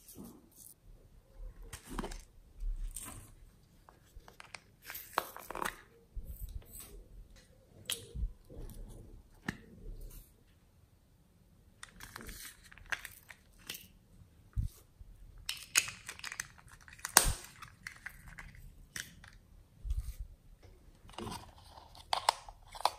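Small plastic slime containers and a glitter bottle being handled and opened: irregular plastic clicks, taps and crinkles, the sharpest about 17 seconds in.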